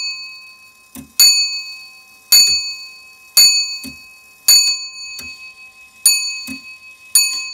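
The large hour bell of a c.1500 Gothic wrought-iron foliot clock, struck by its hammer as the clock strikes 11 o'clock. Six blows fall roughly a second apart, each ringing on into the next, with a soft clunk of the striking mechanism between blows.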